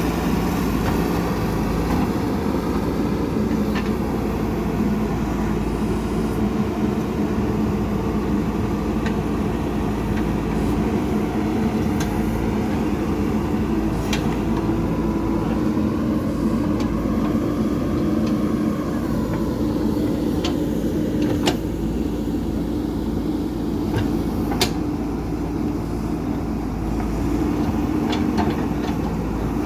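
JCB 3DX backhoe loader's diesel engine running steadily under work, its note swelling and settling once midway, with occasional sharp metallic clanks.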